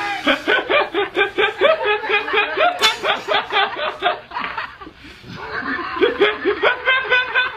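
Laughter in rapid, rhythmic ha-ha pulses, about four or five a second, breaking off briefly about five seconds in and then starting again.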